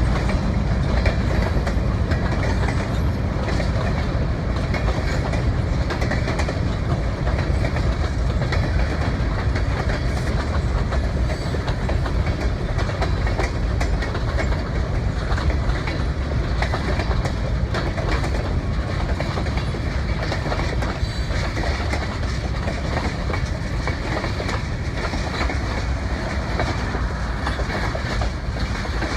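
Train rolling along the track, its wheels clicking steadily over the rail joints with a continuous rumble; it eases slightly near the end.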